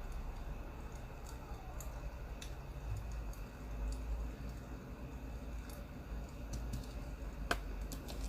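Irregular pops and crackles of a burning wood fire, with one louder snap near the end, over a low steady rumble.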